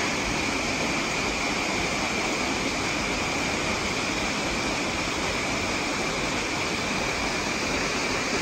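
Steady rushing of a small waterfall plunging into its pool, with a steady high-pitched hum above it.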